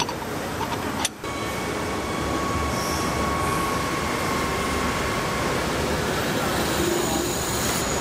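Lathe running in a machine shop while turning small copper-alloy valve parts: a steady mechanical din, with a faint thin whine through the middle seconds. The sound breaks off for a moment about a second in.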